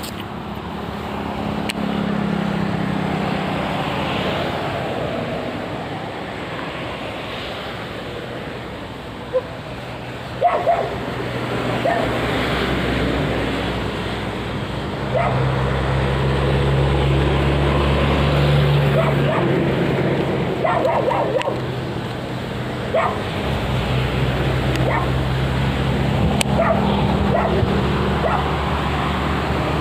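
A dog barking several times in short bursts over a steady low hum.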